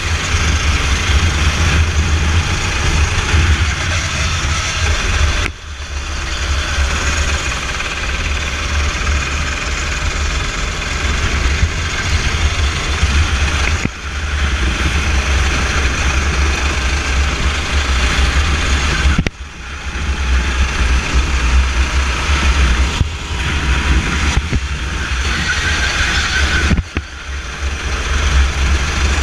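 Racing go-kart engine running hard, heard from on board at speed with heavy wind rumble on the microphone. The sound dips briefly four times, about five, fourteen, nineteen and twenty-seven seconds in, then picks up again.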